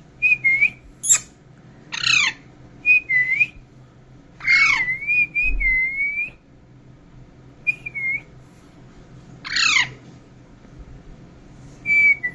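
Pet Indian green parakeet calling about eight times: short whistled notes, some wavering, mixed with harsh screeches that sweep sharply downward in pitch.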